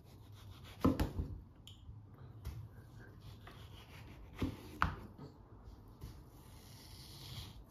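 Kitchen knife slicing through a peeled mango and knocking on a plastic cutting board: a few sharp taps about a second in and two more around five seconds in, with soft cutting and rubbing sounds between.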